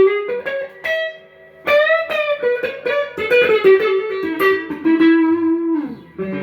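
Fender partscaster electric guitar played as a single-note lead line, with a string bend about two seconds in and a long held note near the end.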